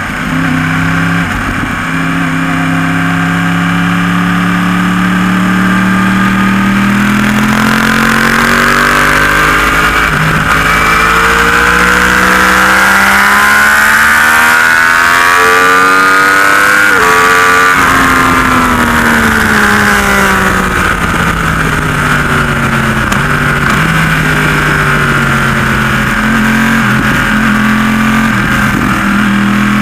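Yamaha YZF-R1 crossplane inline-four engine under hard acceleration, heard from on board: the pitch climbs steadily for about fifteen seconds, then drops sharply as the throttle closes and keeps falling for several seconds before settling into a steadier, lower note near the end.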